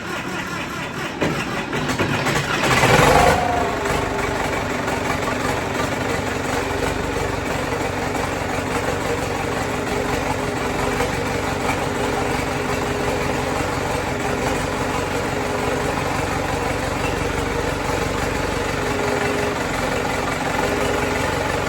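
Freshly rebuilt turbocharged Case 770 diesel engine running on its first start after the repair, with a brief louder surge whose pitch falls about three seconds in, then settling to a steady idle.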